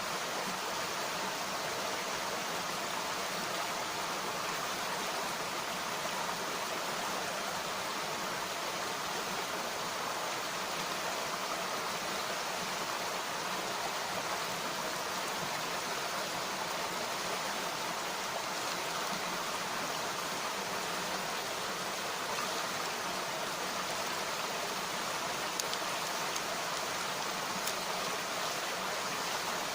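A mountain stream flowing: a steady rush of water, with a few faint snaps near the end.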